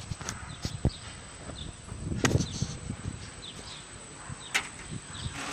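Outdoor background with a small bird chirping repeatedly in short high notes, and a few sharp knocks, the loudest about two seconds in and again near the end.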